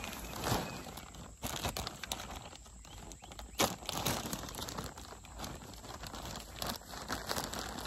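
Large plastic bag of potting mix crinkling and rustling as gloved hands work it open, with irregular sharp crackles and a few louder ones.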